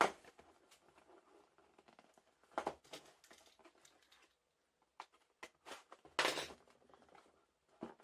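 Small cardboard box handled and its sealed flap slit with a snap-off utility knife: a few scattered scrapes, rustles and taps, the longest about six seconds in.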